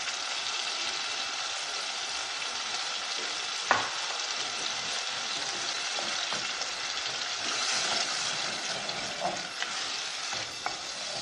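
Tomato sauce with garlic and herbs sizzling steadily in a pot while it is stirred with a wooden spoon. The spoon knocks sharply against the pot once about four seconds in, with a few lighter knocks near the end.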